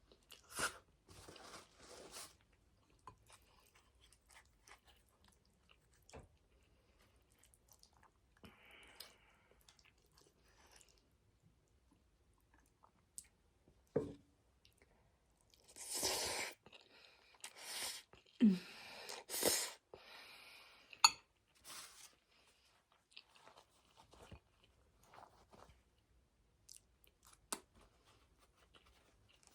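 A person chewing a mouthful of sauced angel hair spaghetti close to the microphone, with wet mouth clicks. A cluster of louder, noisier mouth sounds comes between about 16 and 21 seconds in.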